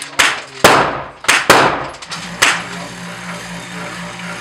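Thompson submachine gun firing in an indoor range: about five sharp shots, irregularly spaced, in the first two and a half seconds, each ringing briefly off the walls. After the last shot a steady low hum is left.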